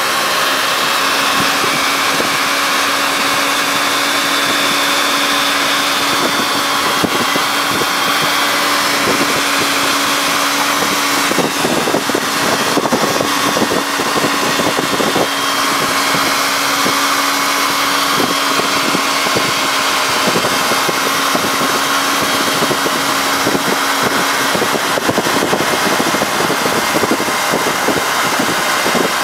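Steady vehicle engine drone at freeway cruising speed, holding a nearly constant pitch, under a broad hiss of wind and tyres on a wet road.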